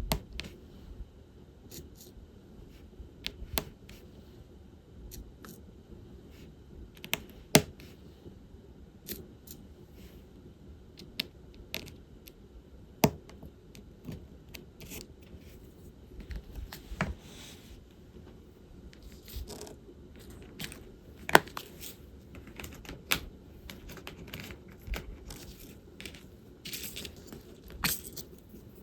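Diamond painting work: a drill pen picking up resin drills and tapping them onto the sticky canvas in irregular small clicks, a few sharper than the rest, with now and then a short rattle of loose drills in the tray.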